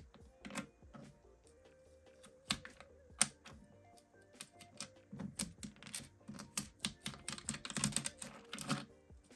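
Irregular light clicks and clatter of small hard plastic parts, as from an articulated 3D-printed PLA flexi toy being wiggled so its segments knock together. The clicks are sparse at first and come thicker and faster about halfway through.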